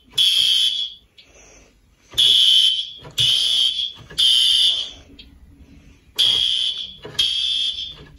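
Fire alarm sounding a loud, high-pitched beep in groups of three, each beep just under a second long, with a pause of about a second between groups: the three-beep evacuation signal.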